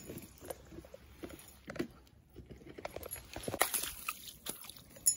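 A trout being landed in a mesh landing net and set down on wet grass: scattered splashes, rustles and knocks from the net and the fish, loudest about three and a half seconds in.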